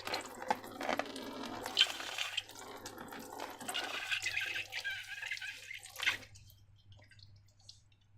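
Wet slime being squeezed and worked, squelching and dripping with many small crackles; it stops about six seconds in.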